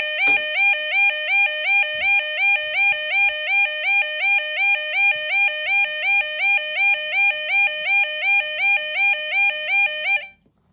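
Arduino-driven alarm buzzer sounding a harsh, repeating two-tone warble, about two and a half cycles a second. There is a sharp click just after it begins, and the tone cuts off suddenly about ten seconds in.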